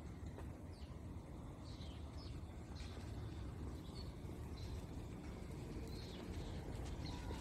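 Small birds chirping, short falling chirps scattered about once a second, over a steady low rumble.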